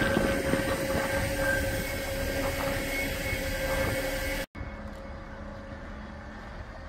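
Truck-mounted crane running steadily with a constant whine while it lifts a shipping container on slings. About four and a half seconds in, the sound drops abruptly to a quieter level.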